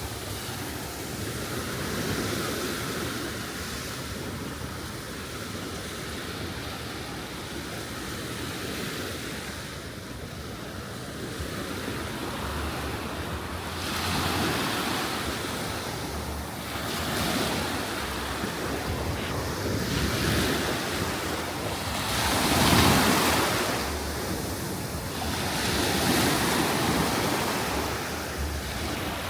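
Surf breaking and washing up on a sandy beach, swelling and ebbing every few seconds, with wind buffeting the microphone.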